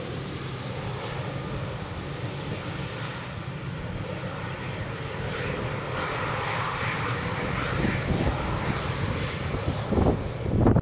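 A KLM Embraer 190 regional jet's turbofan engines running as it rolls along the runway after landing, growing gradually louder, with two low thumps near the end.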